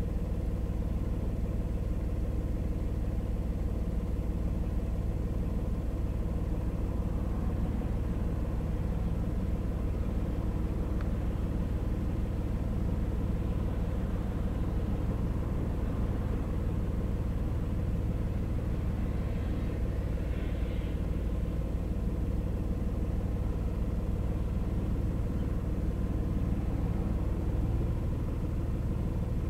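A car driving at a steady speed on a highway: a constant engine hum with tyre and road rumble, and a brief faint hiss about twenty seconds in.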